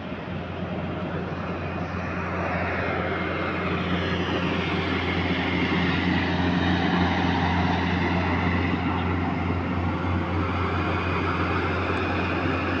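Ride-on mower's engine running steadily as it cuts the grass, growing louder over the first six seconds or so.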